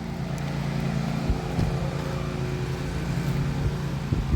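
A motor running steadily with a low, even drone, with a few faint knocks over it.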